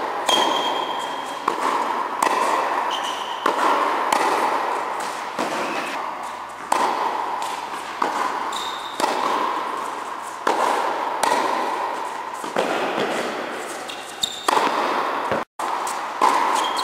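Tennis ball struck on the volley by a racket, a sharp hit every one to two seconds, each ringing out in the echo of an indoor tennis hall.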